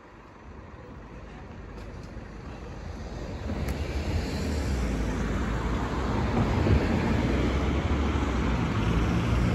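Diesel train approaching, its engine hum and rumble growing steadily louder.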